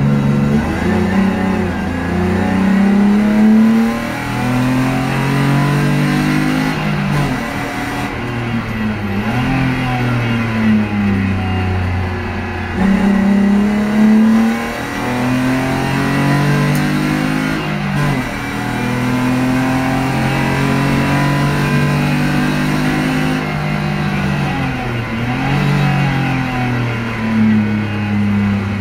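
BMW E30's M50 straight-six engine heard from inside the cabin under hard track driving. It repeatedly rises in revs and drops back with gear changes and braking.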